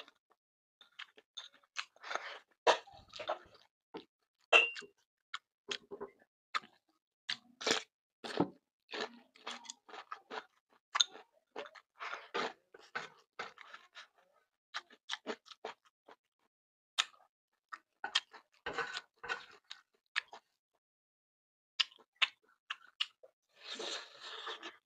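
Close-miked eating sounds: a person chewing and crunching fried tofu with rice, irregular wet mouth clicks and small crunches.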